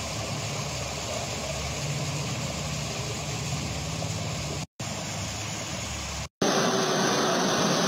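Muddy floodwater rushing down a street in a steady torrent. The sound cuts out twice briefly, a little under five seconds in and about six seconds in, as the clip is skipped ahead. After the second skip it comes back louder.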